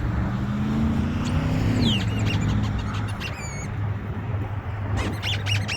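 Steady low rumble of vehicle engines, with one engine's note rising for about two seconds and then dropping. A few short high chirps come through near the middle and again near the end.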